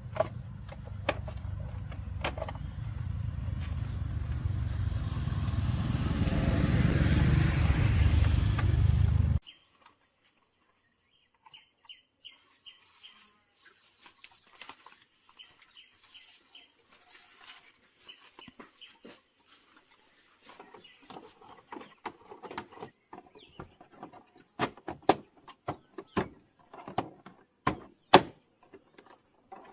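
A motor running with a low, steady hum that grows louder over about nine seconds, then cuts off abruptly. Scattered light clicks and taps follow, growing denser and louder near the end.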